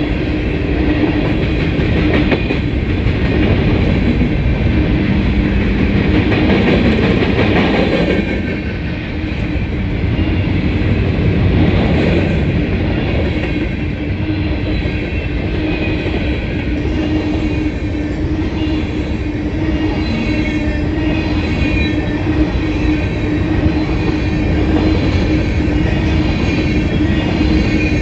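Freight train of loaded covered hopper cars rolling past close by: a continuous rumble of steel wheels on rail with a steady ringing tone over it.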